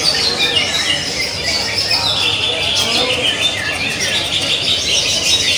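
Many caged green leafbirds (cucak ijo) singing at once: a dense, unbroken chorus of overlapping high chirps and quick whistled phrases.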